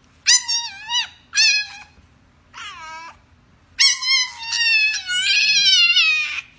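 French bulldog puppy howling: a few short, high cries, then one long wavering howl near the end.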